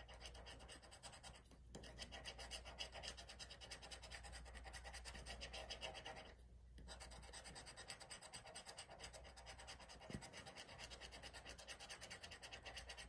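Scratch-off lottery ticket being scraped with a handheld scratcher tool: faint, rapid back-and-forth scratching strokes across the card's coating, broken by two short pauses.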